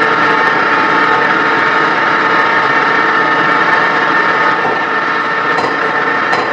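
Pneumatic forging hammer running with a loud, steady drone. Near the end its ram strikes a glowing hot steel block.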